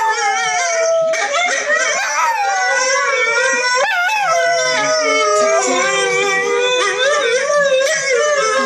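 Several dogs howling together in overlapping, wavering pitches: huskies howling from a video on a computer's speaker, with a Yorkshire terrier howling along.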